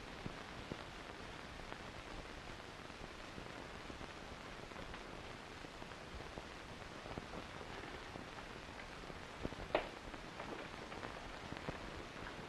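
Steady hiss and crackle of an old film's optical soundtrack, with scattered faint clicks and one sharper click about ten seconds in.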